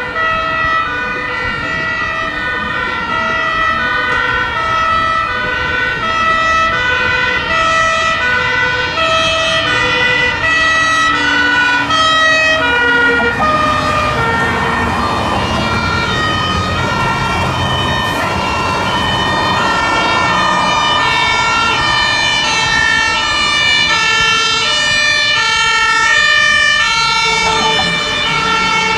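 Several German fire brigade two-tone sirens (Martinshorn) sounding at once, each alternating a high and a low note, overlapping out of step at different pitches. The rumble of heavy vehicle engines and traffic swells in the middle.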